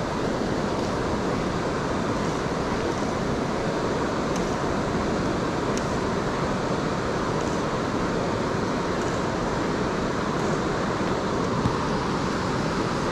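Steady rush of flowing river water, an even noise at a constant level.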